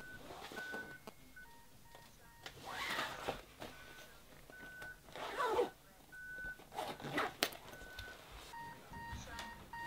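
Short electronic beeps sound at uneven intervals, some at one higher pitch and some as paired lower tones. Under them are rustles of cloth and a bag being handled as belongings are stuffed in, loudest about halfway through.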